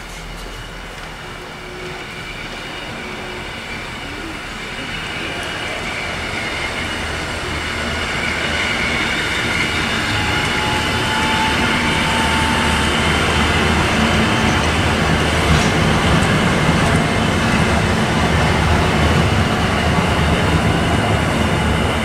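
EN57AL electric multiple unit rolling slowly into the platform track while shunting. Its running and wheel noise grows steadily louder over the first dozen seconds as it comes close and passes, then stays loud, with a faint high wheel squeal over a low rumble.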